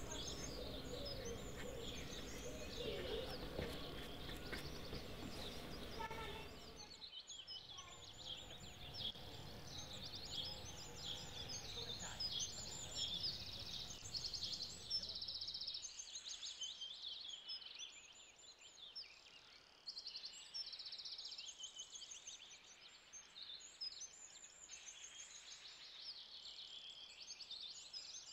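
Many small songbirds chirping and singing, a dense run of short, high calls. A low murmur of background sound underneath drops away about seven seconds in.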